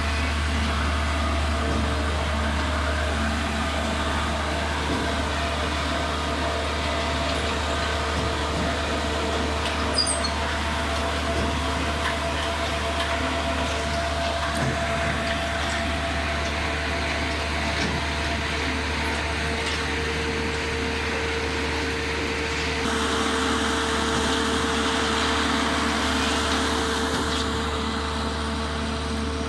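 Concrete mixer pump truck running with a steady mechanical hum and steady tones. There is a sharp click about ten seconds in, and the running sound turns noisier about three-quarters of the way through.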